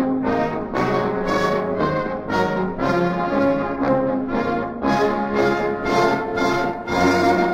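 A German military march played with brass to the fore: trombones, horns and trumpets over a steady march beat of about two accents a second.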